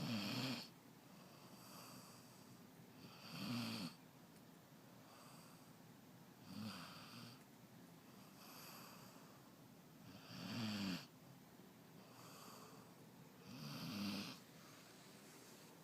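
Snoring, slow and regular: five louder snores about every three and a half seconds, with softer breaths out between them.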